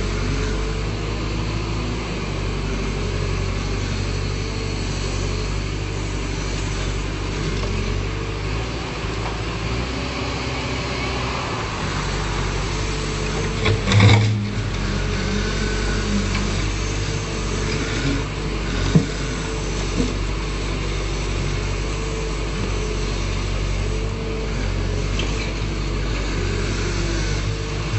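Backhoe loader's diesel engine running steadily under work, with one loud clunk about halfway through and two short knocks a few seconds later.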